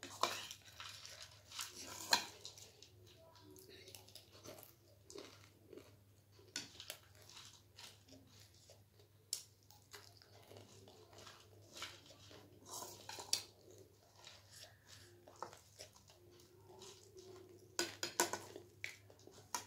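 A person chewing and crunching mouthfuls of crisp snack food, with irregular crunches and a few louder bites.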